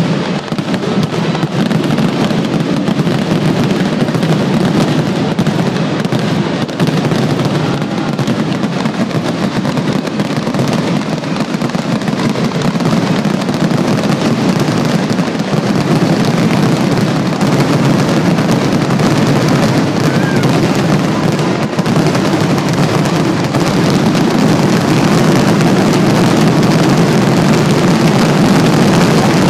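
Aerial fireworks shells bursting in a dense, rapid barrage, the bangs running together into one continuous rumble that grows a little louder near the end.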